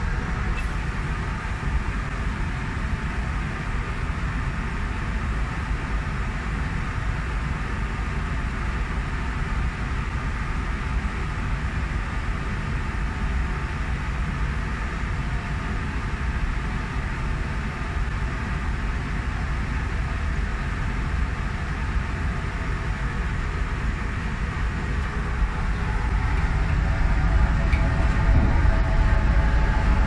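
Steady rushing, rumbling noise of an electrostatic powder coating booth at work: the booth's extraction and the coating gun blowing powder on compressed air set to 0.2 MPa. The noise grows a little louder near the end, with a few faint steady tones added.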